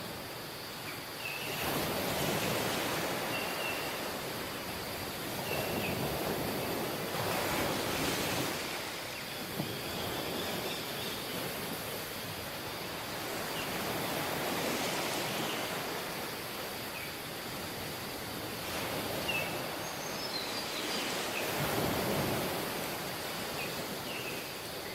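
Waves washing onto a beach, the surf swelling and falling away four times, with scattered short high chirps over it.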